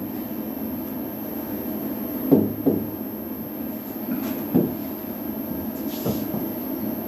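Handwriting on an interactive touchscreen whiteboard: about four soft knocks as the pen lands on the screen, over a steady background hum.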